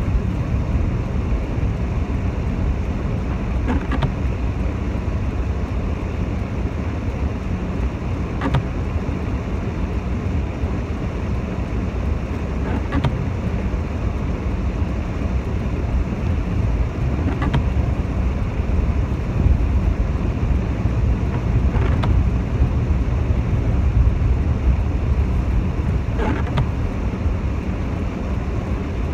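Steady low rumble of a car's engine and road noise heard inside the cabin, with a faint swish of the windscreen wipers repeating about every four and a half seconds.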